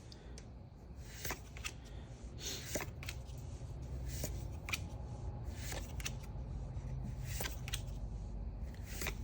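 Pokémon trading cards being handled and flipped through by hand: a scattering of soft card rustles and light clicks, with a low steady hum underneath.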